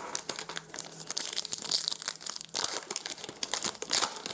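Trading-card pack wrapper crinkling and tearing as it is opened, a dense run of quick crackles with louder bursts midway and near the end.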